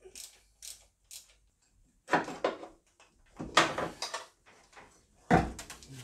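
Clicks and clanks of metal hand tools undoing bolts, with a few light clicks and then three louder bursts about two, three and a half and five seconds in.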